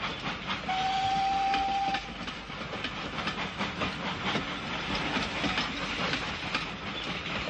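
Double-headed steam locomotives, a Great Western Mogul and a Manor, working hard as they pull a train away, with a dense clatter of exhaust beats and rail noise. A single steady whistle blast sounds about a second in and lasts a little over a second.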